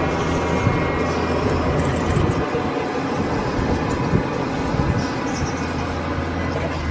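A vehicle engine idling steadily, a low hum under an even rushing noise.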